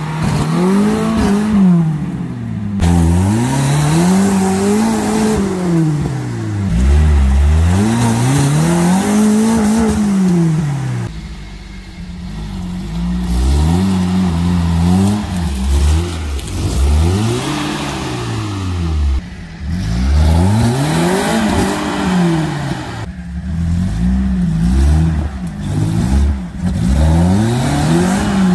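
Suzuki Samurai engine revving up and falling back again and again, each rise lasting about two to three seconds, as the jeep works its way through a steep, muddy creek crossing. The engine eases off briefly about halfway through before revving again.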